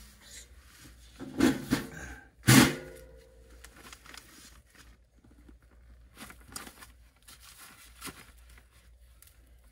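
A metal blower motor being handled and set down on plastic sheeting: crinkling about one and a half seconds in, a loud knock with a brief metallic ring about two and a half seconds in, then lighter rustles and clicks.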